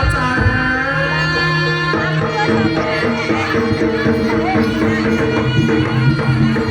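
Live jaranan gamelan music: hand drums (kendang) played in quick strokes under ringing, steady metallophone and gong tones, with a wavering melody line over them early on. The band fills out about two seconds in, with more sustained tones sounding together.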